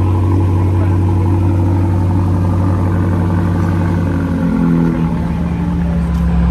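BMW M5 Competition's twin-turbo V8 running steadily, its note shifting lower about four to five seconds in.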